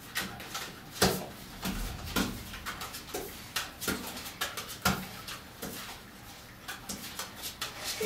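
Cards being dealt one by one onto a table, each landing with a light tap, at an uneven pace of roughly one to two a second.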